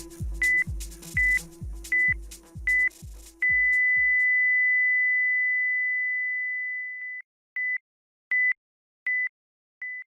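Short high electronic beeps, about one every three-quarters of a second, over a pulsing electronic bass beat that stops about four seconds in. One long steady beep follows, then the short beeps resume at the same pace.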